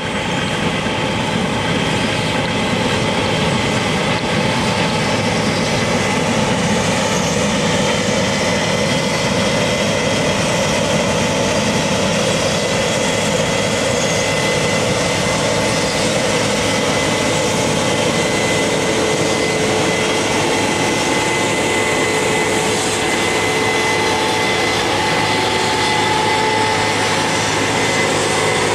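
Combine harvester running steadily while harvesting grain: an even mechanical drone with a few steady whining tones.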